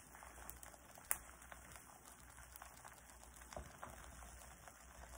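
Beaten egg sizzling faintly as it sets into a thin omelette in a frying pan: a soft, even crackle with one sharper tick about a second in.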